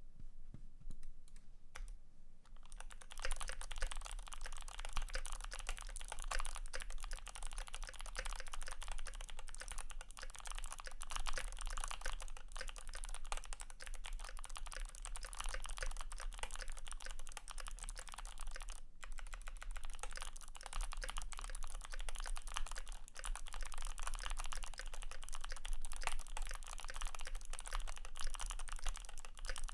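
Fast continuous typing on a Glorious GMMK PRO mechanical keyboard with lubed Kailh Speed Bronze clicky switches, PBT keycaps on an aluminium plate, and a tape-modded, polyfill-filled case. A few scattered keystrokes become a dense stream of clicks about three seconds in, with a brief pause about two-thirds of the way through.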